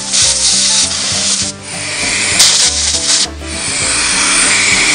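Compressed-air blow gun blasting grime and oil out of a chainsaw bar's groove and oiler port: three long hissing blasts, with short breaks about a second and a half and three seconds in.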